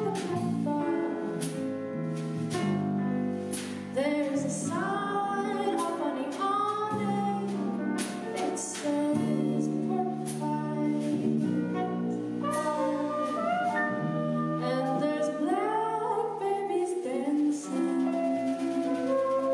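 Small jazz band playing: a soprano saxophone and a woman's voice carry bending melodic lines over grand piano, electric bass and a drum kit with frequent cymbal and drum strokes.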